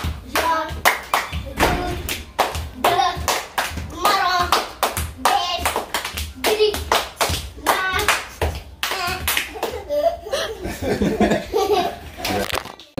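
Children clapping their hands in rhythm during a clapping game, their young voices chanting along between the claps.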